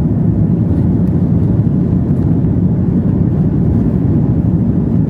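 Airliner cabin noise in flight: a steady, low rushing of engines and airflow heard from inside the cabin by a window seat.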